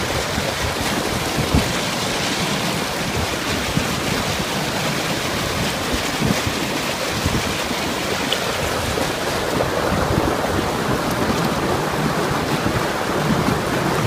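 Stream water rushing and splashing over low rock ledges in a small cascade, a steady close-up rush.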